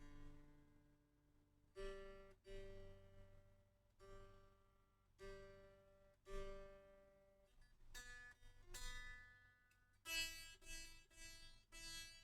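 Faint, unplugged electric guitar: single strings plucked one at a time to check the tuning after a fresh setup. Each note rings and fades, about one a second, with a quicker run of notes in the last few seconds.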